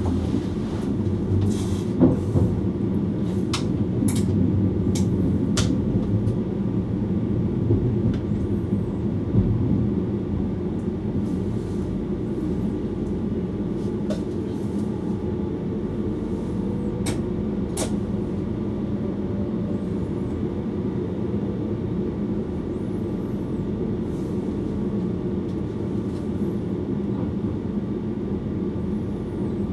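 Electric passenger train running along the track, heard from the driver's cab: a steady low rumble with several sharp clicks in the first few seconds, then an even run.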